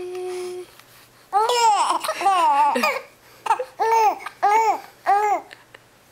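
Young infant cooing and babbling. A short held coo comes first, then a run of high squealing sounds from about a second in. Near the end come three short rising-and-falling 'ah' sounds about half a second apart.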